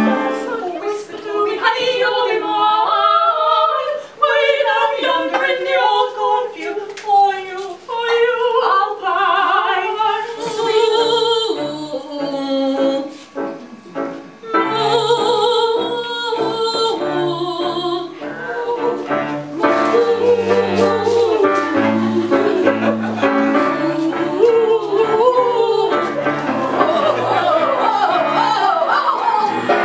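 Live cabaret song: female vocals singing over a small acoustic band of keyboard, double bass and cello, with a run of quick rising slides near the end.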